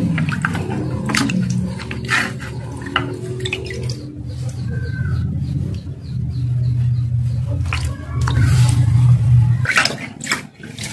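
A knife striking a cutting block as a pompano is cut: a handful of sharp, irregular chops a second or so apart, over a steady low hum that swells near the end.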